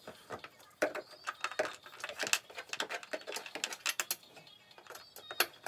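Hand screwdriver driving a screw into an ATV's plastic footrest panel: a run of quick, irregular clicks and scrapes starting about a second in and thinning out after about four seconds, with one last sharp click near the end.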